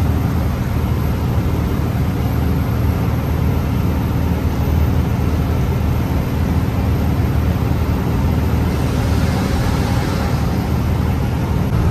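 Truck engine running steadily on the road, a continuous low drone with road noise. A brief hiss rises and fades about nine to eleven seconds in.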